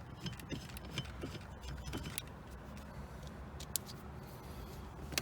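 Faint, scattered metallic clicks and light taps over a steady low hum: a hub bolt being threaded by hand into the car's steering shaft.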